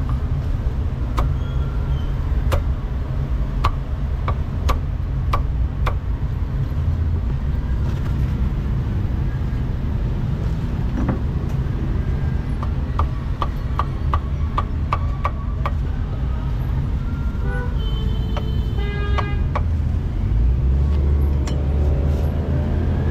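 Heavy cleaver chopping roast duck and pork on a thick wooden chopping block: sharp knocks about once a second, then a quick run of about four chops a second, over a steady rumble of road traffic. A vehicle horn toots briefly about three-quarters of the way through, and the traffic rumble swells near the end.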